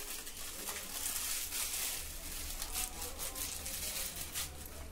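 Butter paper rustling and crinkling as it is folded and pressed around a wrapped roll, a run of quick papery crackles.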